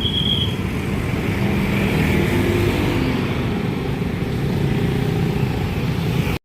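Steady road-traffic noise with a low engine rumble from passing vehicles; a short high tone sounds right at the start.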